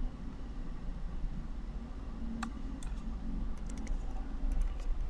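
Computer keyboard typing: a scatter of short key clicks in the second half, over a low steady hum.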